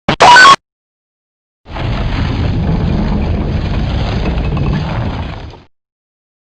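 Two electrical sound effects: a very short, loud zap just after the start, then about four seconds of steady, noisy electric buzzing that fades out.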